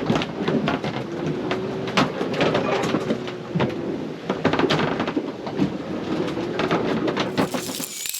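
Sailboat under way in a swell: a steady rush of water and wind with many irregular creaks, knocks and rattles from the boat working in the waves.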